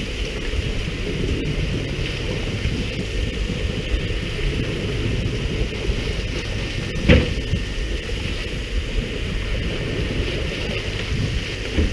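Steady rumble of a fishing boat under way, with wind on the microphone and a hiss of churned water alongside the hull. One brief thump about seven seconds in.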